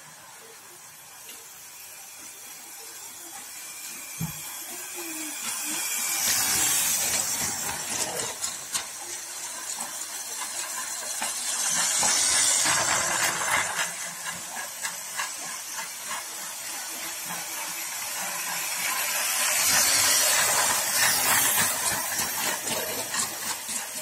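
Toy train running on plastic floor track: a hissing, clicking rattle of wheels and motor that swells each time the train comes close, loudest about a quarter of the way in, halfway through as it passes right by, and again near the end. A single knock sounds about four seconds in.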